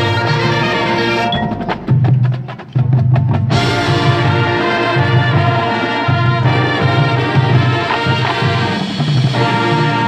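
Marching band playing: wind chords over a steady low pulse with percussion. A little over a second in, the sustained chords break off for about two seconds, leaving short percussion strikes, then the full band comes back in.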